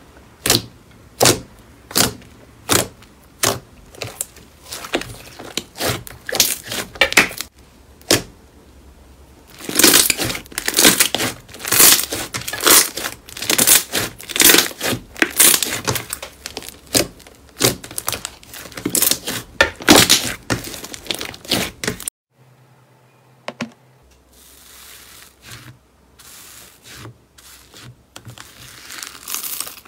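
Glossy slime being pressed and kneaded by hand: sharp pops of trapped air at an even pace, a little faster than one a second, then denser crackling squelches as it is squeezed and folded. After a short break about two-thirds through, softer crackling squishes of another slime being pressed in a plastic tub.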